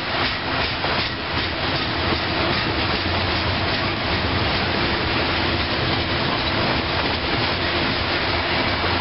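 Steel-wheeled coal hopper cars of a unit coal train rolling past, a steady rumble and clatter of wheels on rail.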